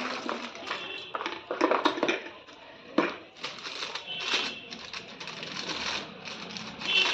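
Irregular clicks, taps and rattling of a plastic-and-metal motorcycle phone mount being handled and tried in place, with a sharper knock about three seconds in.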